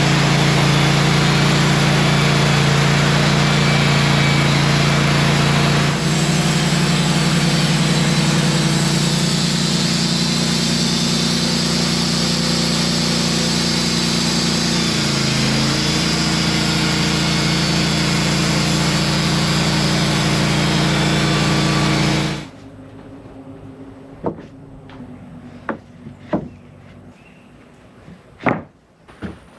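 Wood-Mizer band sawmill running steadily as its new, very sharp band blade cuts through a log; it stops abruptly about 22 seconds in. A few sharp knocks follow near the end.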